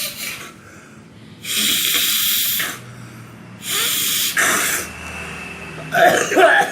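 A person snorting forcefully through the nose again and again, hard bursts about a second long, forcing out mucus loosened by a gurah nasal treatment. Near the end the sound turns rougher and throatier.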